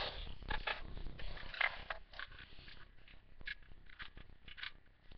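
Irregular rustling and small clicks of handling close to a webcam microphone, busier in the first couple of seconds and then sparser.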